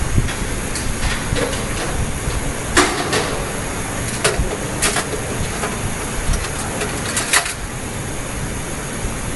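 Steady machine-shop background noise with about five sharp metallic clicks spread through it, the loudest about three seconds in and another just past seven seconds.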